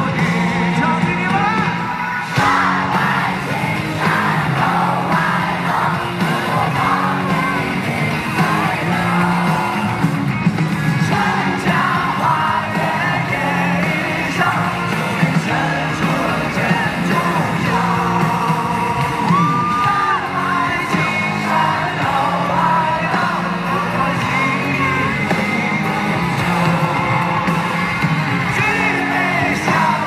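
A male singer singing live over a full band, loud and continuous, his voice carried through the stage sound system.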